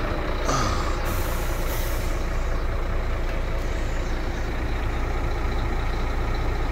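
Scania P380 truck's inline-six diesel idling steadily, heard from inside the cab, with a short hiss about a second in.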